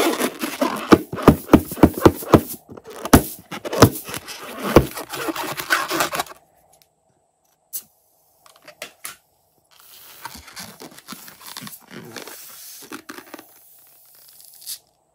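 Fingers squeezing and rubbing a filled latex balloon: a rapid run of sharp crackles and scrapes for about six seconds, a few separate clicks, then softer scraping, with one short click near the end.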